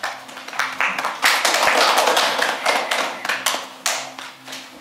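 Audience applauding at the end of a talk: claps start at once, grow dense, then thin out and die away near the end.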